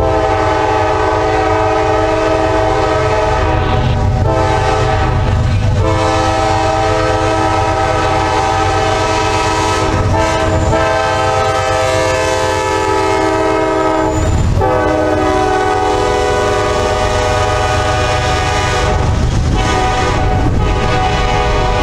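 Nathan K5LA five-chime horn on a CSX GE Dash 8-40CW freight locomotive blowing a long series of blasts, broken by brief gaps, over the low rumble of the passing train.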